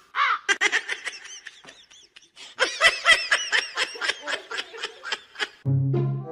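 High-pitched laughter: a fast run of short ha-ha pulses, about four to five a second, easing off briefly around two seconds in. A low, steady, horn-like tone comes in near the end.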